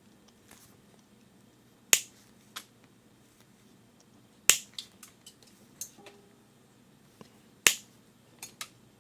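A series of sharp clicks and snaps from hand tools and small parts being handled during the repair. The three loudest come about three seconds apart, with lighter ticks between them.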